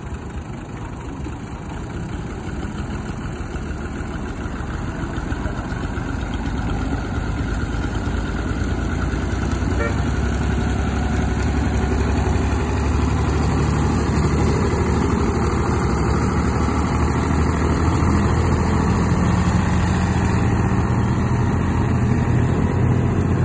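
A tractor's engine running steadily at low revs, growing louder over the first half and then holding steady.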